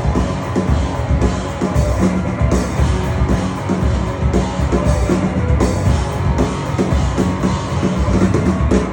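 Rock band playing live and loud, driven by busy, fast drumming on a full drum kit.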